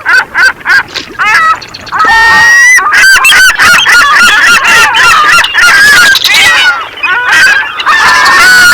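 A flock of geese honking: separate calls at first, then many overlapping honks from about two seconds in.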